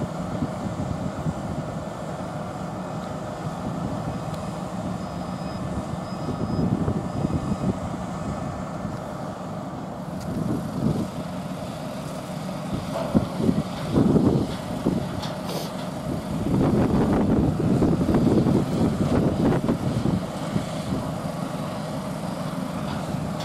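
Diesel lorry engine running steadily in a loading yard, with a few faint short high beeps in the first half and gusts of wind on the microphone later.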